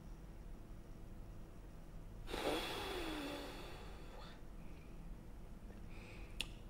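A woman's breathy voiced exhale about two seconds in, falling in pitch like a sigh or groan, from someone reading with a grimace. A short sharp click comes near the end.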